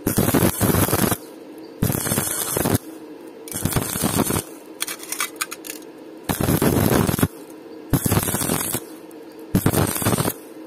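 Stick-welding (SMAW) electrode arc crackling and sizzling in six short bursts of about a second each, struck and broken again and again as the joint is stitch-welded. A steady low hum carries on in the gaps between bursts.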